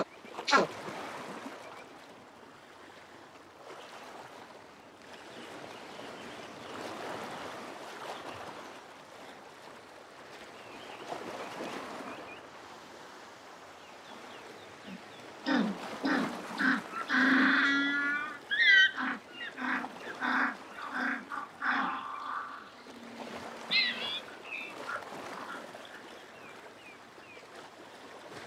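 African penguin (jackass penguin) braying. After a stretch of faint background rush, a series of short donkey-like honks starts about halfway through and swells into a longer, louder bray. Several more pulsed honks and one last note follow.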